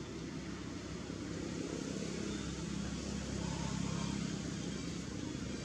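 Low rumble of a motor vehicle engine, swelling louder through the middle and easing off again, as a vehicle passes.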